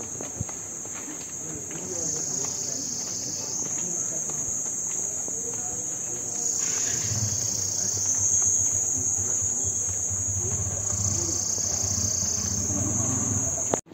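Loud, shrill insect chorus: a steady high buzz that swells and eases in long waves about every four and a half seconds.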